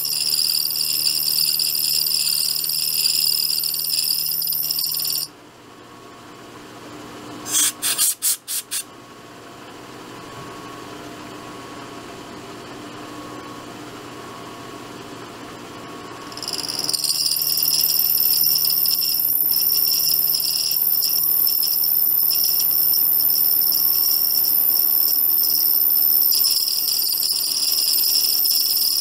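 Milling cutter taking a light cut in metal, giving a steady high-pitched squeal. About five seconds in the cut stops and the sound drops to a quiet running hum, with a quick run of sharp clicks around eight seconds. The high squeal of cutting starts again about sixteen seconds in and carries on.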